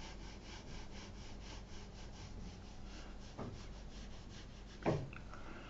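Faint, quick scratching of a paintbrush dragged over textured watercolour paper, laying white gouache sparkle onto the painted water, at about five strokes a second, fading after a couple of seconds. Near the end there is one brief, louder sound.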